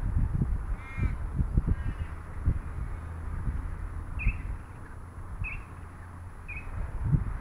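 A bird calling: two drawn-out calls in the first two seconds, then three short calls about a second apart, over a low rumble of wind on the microphone.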